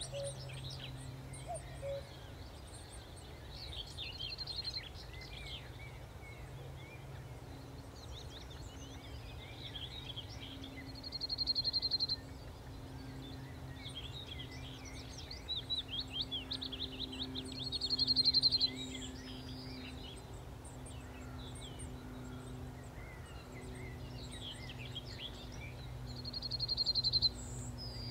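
Yellowhammer singing its song several times, seven or eight seconds apart: a quick run of repeated high notes ending in a longer drawn-out note. Fainter chirps come between the songs, over a low steady hum.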